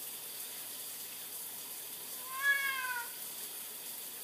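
Domestic cat giving one short meow about two seconds in, rising a little and then falling in pitch, over a faint steady hiss.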